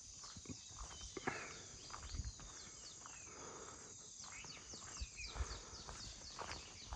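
Rural wildlife chorus: many quick, high chirps that slide downward, repeating over a steady high buzz, with a few soft thumps.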